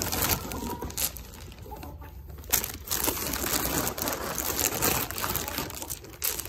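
Crinkling and rustling of a cereal bag as handfuls of fruit-ring cereal are scattered, with a few sharp taps, and hens clucking softly among the feeding animals.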